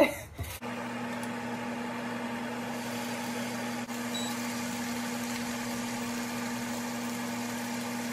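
Steady, even hum of a running kitchen appliance's motor or fan, starting about half a second in and holding at one pitch and level.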